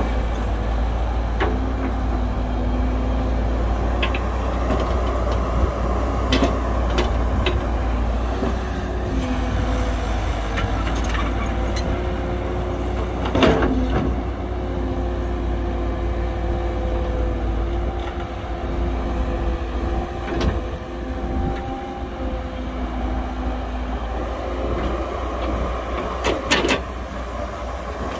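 Heavy diesel earthmoving machinery running with a steady deep rumble, overlaid by scattered sharp clanks and knocks. The loudest knock comes about halfway through, and a cluster of knocks comes near the end.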